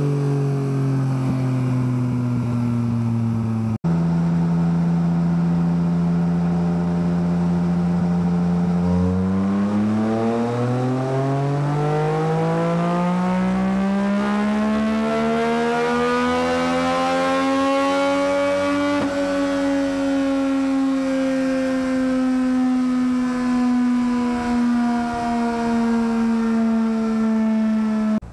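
Yamaha XSR900's three-cylinder engine running at high revs. A falling note breaks off suddenly, then a steady note climbs smoothly in pitch for about ten seconds and slowly falls back again.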